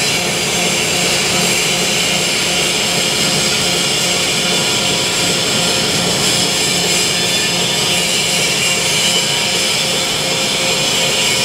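Artificial rice extruder production line running: steady machinery noise, an even hiss with a low hum underneath.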